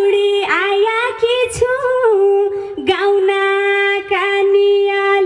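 A woman singing a Nepali song into a handheld microphone, amplified over a PA; after a few bending phrases she holds one long, steady note through the second half.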